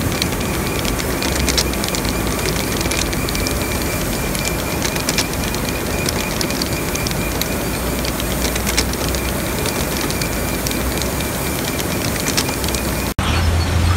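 Crushed stone pouring off the end of a belt conveyor and falling onto the pile: a steady rushing hiss dense with small stone clicks, over a thin steady high machine whine. About a second before the end it cuts to a deep, steady engine hum.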